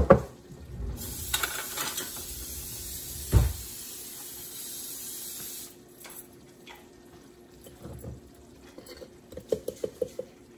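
Kitchen handling noises on a countertop: a sharp knock at the start and another thump about three seconds in, a steady hiss for a few seconds after the first knock, then a quick run of about six light taps near the end.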